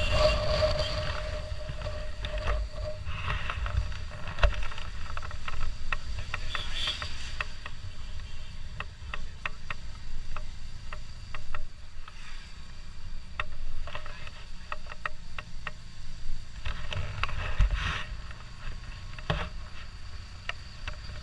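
Motorcycle riding noise picked up by a camera mounted on the bike: steady engine and wind rumble, with scattered small knocks and clicks throughout.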